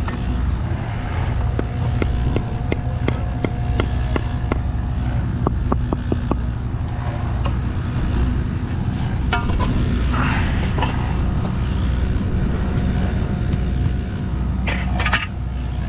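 A steady engine rumble with a faint steady tone, overlaid by many sharp clicks and knocks, with a few short noisy bursts near the end.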